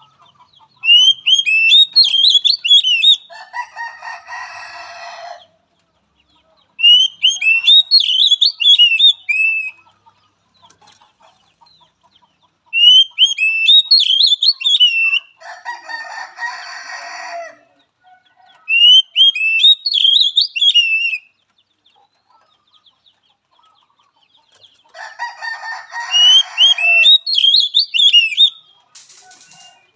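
Oriental magpie-robin (kacer) singing: five bursts of high, whistled, warbling phrases, each two to three seconds long, about every six seconds. Three times a harsher, rasping call about two seconds long follows or overlaps a phrase.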